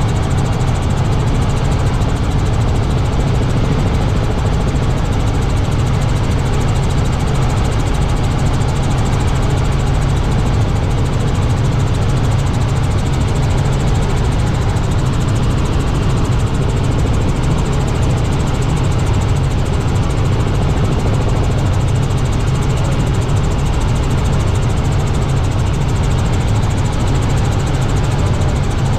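Steady low drone of a Robinson R66 turbine helicopter's engine and rotors, heard from inside the cabin in cruise flight.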